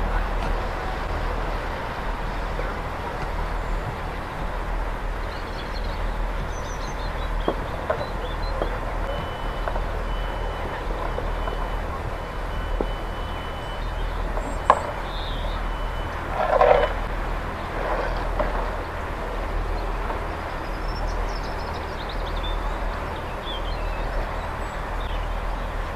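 Class 158 diesel multiple unit idling steadily at a station stop, a low engine hum underneath everything. Birds chirp faintly, a thin high tone holds for about six seconds midway, and a few knocks sound, the loudest a brief clatter about two-thirds of the way through.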